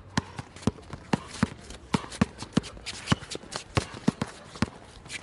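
A basketball dribbled hard on an outdoor court, a quick, uneven run of sharp bounces about two or three a second, mixed with the scuff of sneakers as the players move.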